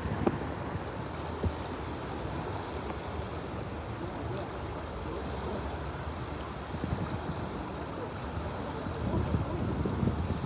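Steady rush of the Rio Bravo (Rio Grande) current, with wind buffeting the microphone in low gusts that grow a little stronger near the end.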